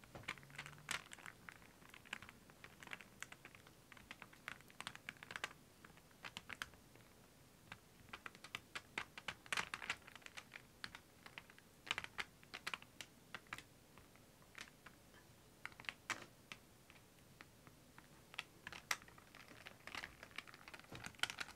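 Faint, irregular light clicks and taps from a paint-covered stretched canvas being handled and tilted in gloved hands.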